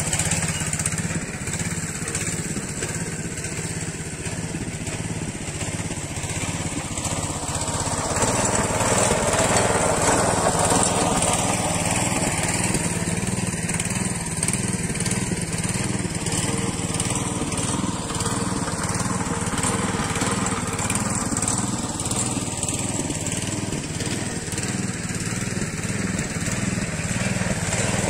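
Small single-cylinder engine of a motor tiller running steadily.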